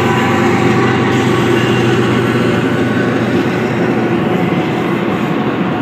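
Freight train passing close by: the diesel engines of the trailing Union Pacific locomotives hum as they go past, giving way to the steady rumble of double-stack container cars rolling by.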